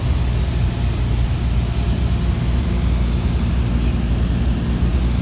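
Small single-engine propeller plane's engine and propeller droning steadily inside the cabin in level flight.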